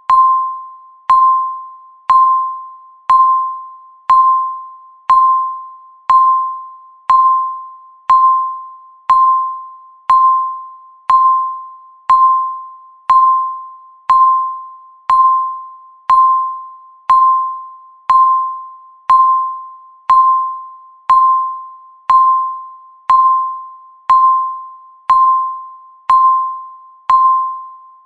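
Countdown timer beeping once a second: a single high tone struck sharply and fading away before the next beep, in an even, unbroken rhythm.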